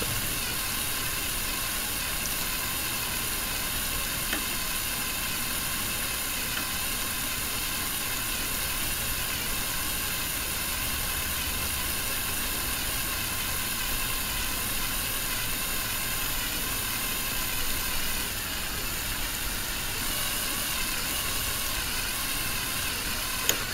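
Handheld electric drill running steadily at slow speed under firm pressure, its twist bit cutting into a steel bar and throwing good, curled chips: the bit is now running true, its wobble gone. The motor's whine holds at one even pitch.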